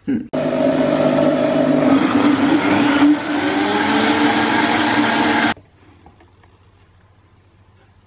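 Countertop blender motor running, blending bananas and powder into a smoothie, then switched off suddenly about five and a half seconds in.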